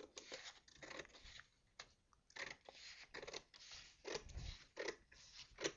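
Scissors cutting a sheet of A4 paper in half: a series of quiet, irregular snips with paper rustling.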